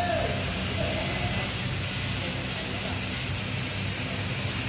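Steady hum and airy hiss of a running fan, with faint background chatter and a few light clicks around two to three seconds in.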